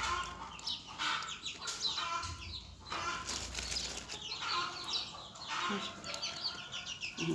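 A brood of young chicks and ducklings peeping, many short, high, overlapping calls going on throughout.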